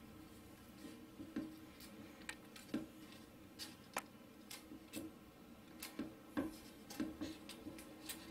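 Faint, irregular clicks and small creaks, roughly one or two a second, from a thermocol (polystyrene foam) block being pressed and held by hand onto a foam hull while hot glue sets.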